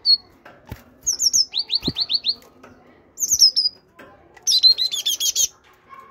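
Great tit calling in short, quick runs of high notes that slide downward, the busiest run about five seconds in, with a couple of soft knocks in between.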